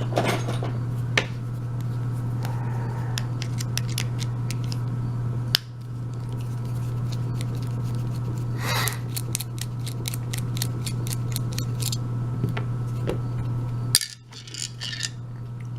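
Small metallic clicks and scrapes as a Phillips screwdriver works a screw out of an Abus 72/40 padlock so it can be taken apart, with a steady low hum underneath.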